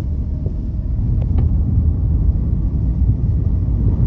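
Loud, steady low rumble of a car on the move, heard from inside.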